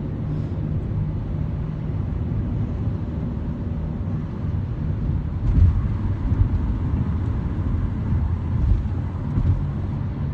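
Car engine and road noise heard inside the cabin while driving: a steady low rumble, with a couple of short low thumps about halfway through and near the end.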